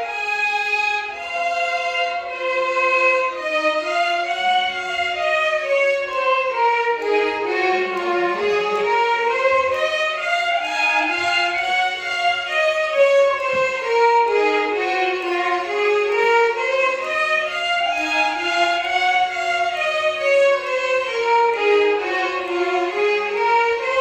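Violin ensemble playing Carnatic music, a single melodic line in repeated scale runs that sweep down and then back up, several times over.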